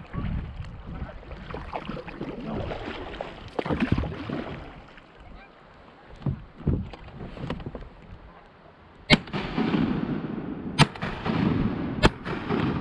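Three shotgun shots in the last four seconds, about a second and a half apart, fired at waterfowl passing overhead. Geese honking between the shots, after water and paddle noise from the boat.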